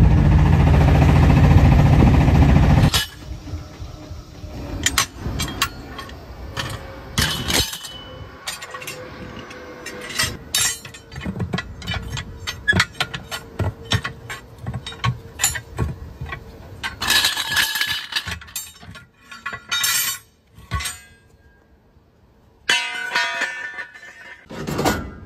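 A loud, steady vehicle noise that stops suddenly about three seconds in. Then steel tyre irons clink, knock and scrape against a truck wheel's steel rim as the tyre bead is levered off by hand, with many short, sharp metal clinks.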